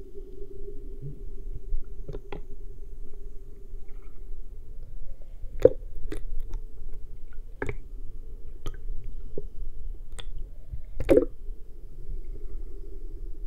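Muffled underwater sound heard through an action camera's waterproof housing in shallow surf water: a low steady hum with about ten irregular sharp clicks and knocks, the loudest about a third of the way in and near the end.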